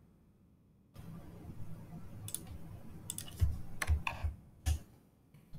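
Typing on a computer keyboard: a scattering of irregular key clicks starting about a second in, the loudest few in the middle.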